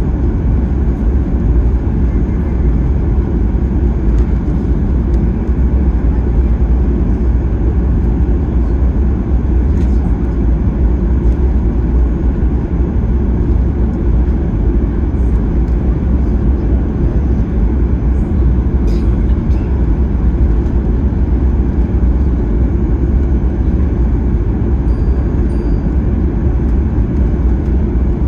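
Steady low rumble in the cabin of a Boeing 737-800 taxiing with its CFM56-7B engines at idle, even and unchanging throughout.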